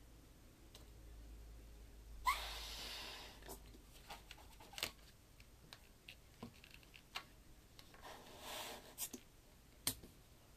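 A long twisting balloon being blown up by mouth: a faint low push of breath, then a rush of air about two seconds in as the balloon inflates, followed by scattered light clicks and rubs of the latex being handled and knotted, with another short rush of air near the end.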